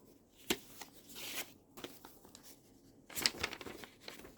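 Paper rustling and pen scratches as readings are checked off on paper: a sharp tap about half a second in, a short rustle a second later, and a cluster of rustles and clicks near three seconds in.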